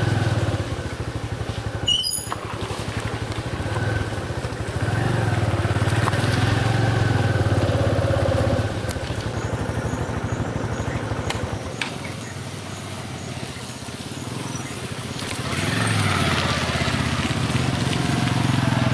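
Motor vehicle engine running with a steady low hum that swells and fades, dipping for a few seconds and growing louder again near the end. A short run of high chirps about two seconds in.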